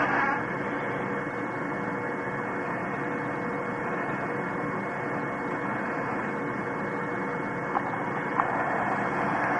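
Steady hum and hiss with a faint constant tone running through it, and two soft clicks near the end.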